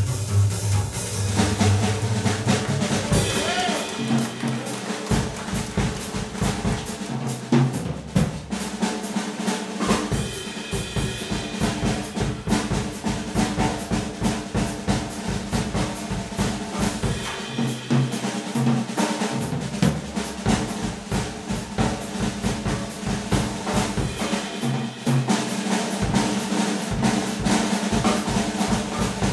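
Drum kit solo in a small jazz band: a fast, steady run of drum strokes with cymbals, the horns silent.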